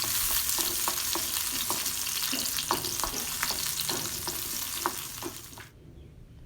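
Green chillies and garlic sizzling in hot oil in a pan, stirred with a spatula that clicks against the pan many times. The sizzle cuts off suddenly about a second before the end.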